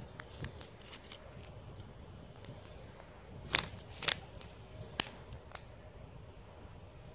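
A few short crackling rustles, like plastic food packaging being handled while a piece of food is tossed to the cats: two in quick succession a little past halfway, then one more about a second later, over faint outdoor background.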